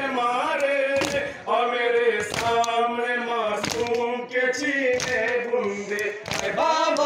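A group of men chanting a Shia noha (mourning lament) in unison, unaccompanied, with sharp chest-beating slaps (matam) striking in time about every second and a bit.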